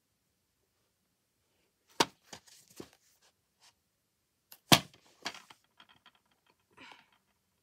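Plastic DVD case being handled and turned over in the hand: two sharp clicks, about two seconds in and again nearly three seconds later, with smaller clicks and scuffs of the case between and after them.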